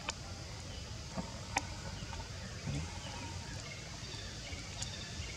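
Outdoor forest ambience: a steady low rumble with a few sharp clicks in the first two seconds and faint, short high chirps.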